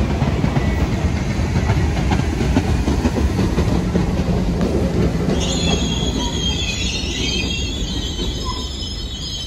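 New York City subway train running along the track with a heavy, steady rumble; about halfway through a high squeal in several wavering pitches sets in over it.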